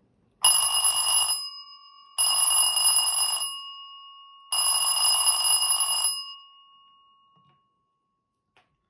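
A 75 mm mains-powered (240 V) electric alarm bell rings in three bursts, each about one to one and a half seconds long, with the gong ringing on and fading after each. The bell is correctly wired and working.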